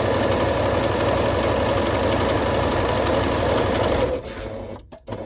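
Singer C5655 computerised sewing machine running a straight stitch at a steady speed, stopping about four seconds in.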